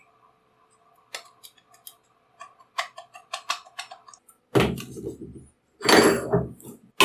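Light metallic clinks and taps from a steel cleaver being handled, several a second, over a faint ringing. Near the end come two louder scraping rushes, each about a second long.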